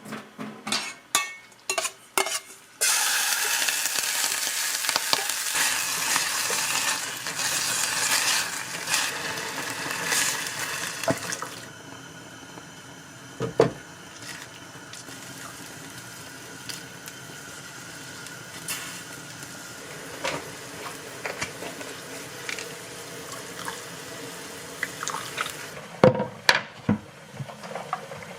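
Food frying in a pan, with utensils clinking and scraping against it. A few sharp knocks in the first seconds, then loud sizzling that settles to a quieter steady sizzle about twelve seconds in.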